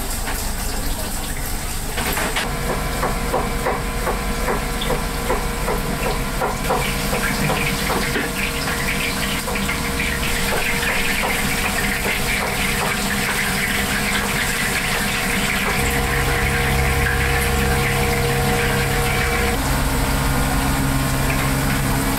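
Busy restaurant kitchen at work: a steady machine hum and rushing water, with quick clattering and knocking through the first half. A deeper hum joins about two-thirds of the way through.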